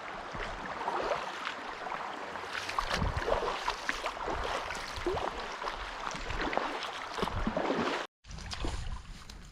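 Shallow stream water rushing and gurgling over a rocky riffle, with many small splashes. The sound cuts out for a moment about eight seconds in.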